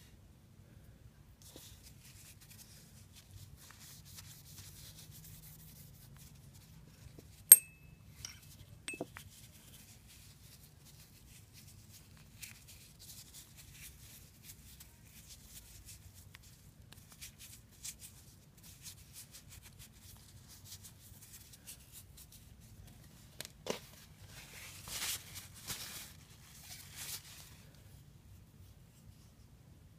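Cloth rubbing along a fishing reel's metal shaft as it is wiped clean, in soft scratchy stretches with louder bursts near the end. A single sharp metallic click about seven seconds in, and a few light ticks of small parts being handled.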